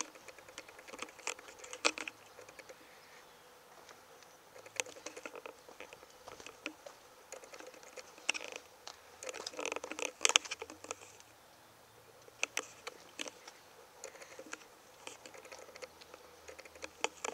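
Scattered, irregular light clicks and taps from the person filming: handling of the hand-held camera and steps on the asphalt while walking around the car. There is a busier cluster of clicks around ten seconds in.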